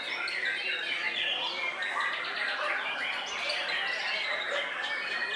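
Many caged songbirds singing at once, a dense chorus of overlapping chirps, trills and whistles.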